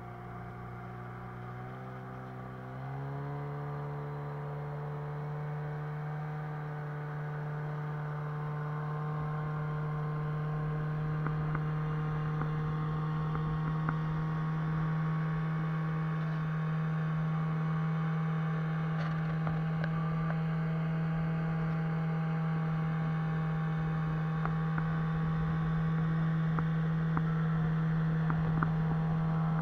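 Small boat's tiller outboard motor running under way; its pitch rises as it speeds up about three seconds in, then holds a steady high drone, with the rush of water along the hull.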